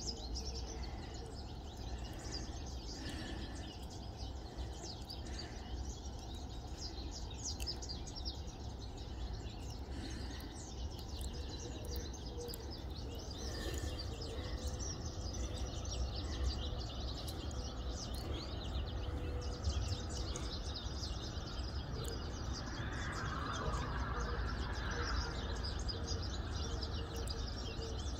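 Small birds chirping and twittering, many short high calls overlapping, over a low steady rumble.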